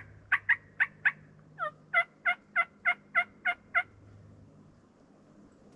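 A run of turkey yelps: about a dozen short, sharp, evenly spaced notes, a short burst of four or five, a brief pause, then eight more at about three a second.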